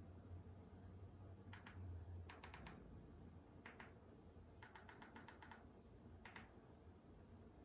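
Faint clicking of remote-control buttons pressed in short runs, each press a quick double tick, with a longer run of presses about five seconds in, over a low steady hum.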